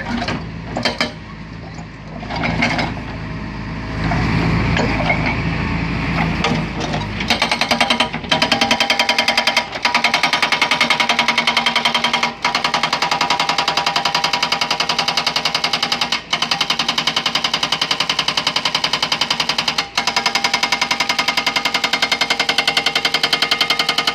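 Excavator-mounted hydraulic breaker hammering a large reinforced concrete block: after a low rumble with scattered knocks, rapid, even blows start about seven seconds in and run on, stopping briefly three or four times.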